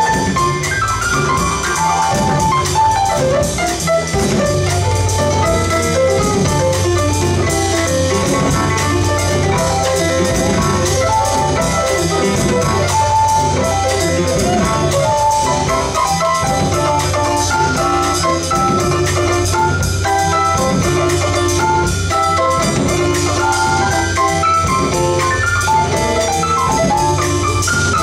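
Live small jazz band playing: upright double bass, drum kit and piano together in a steady, continuous number.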